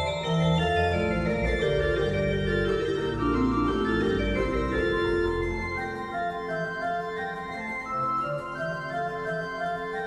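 Background music with held organ-like keyboard chords and a moving melody; the bass drops out about six seconds in.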